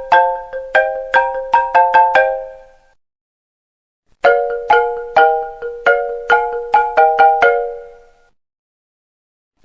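iPhone ringtone: a short marimba-like melody of quick struck notes, played in phrases that each die away into a pause before the melody starts again, once about four seconds in.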